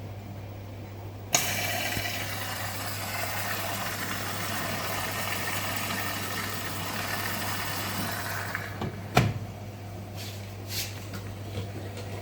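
Rex-Electrolux RJ 7160 TA washing machine with a steady low hum; about a second in, a loud rushing of water starts suddenly and runs for about seven seconds, typical of the inlet valve filling the drum, then stops, followed by a few sharp knocks near the end.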